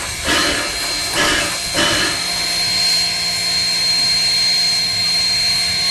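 1943 Baldwin-built AC16 (USATC S118 type) steam locomotive under steam: three puffs of steam, less than a second apart, stop about two seconds in. After that there is a steady hiss of steam with a high, steady whine.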